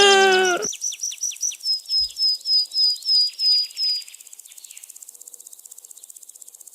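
A run of short, high chirps, about three a second for some three seconds, following a loud pitched call that ends just after the start. Faint rapid ticking follows near the end.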